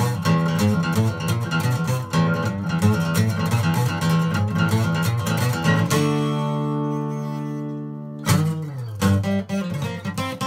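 Acoustic guitar playing a fast picked instrumental riff. About six seconds in, a chord is struck and left ringing for about two seconds, then the playing picks up again with a falling run of notes.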